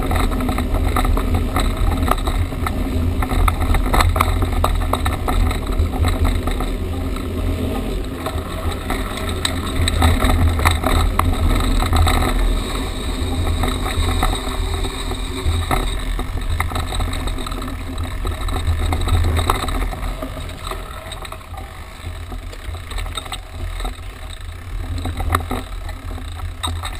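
Mountain bike riding a sandy dirt trail: wind rushing over the handlebar camera's microphone with a steady low rumble, and frequent clicks and knocks from the bike rattling over bumps. It eases off over the last several seconds as the bike slows.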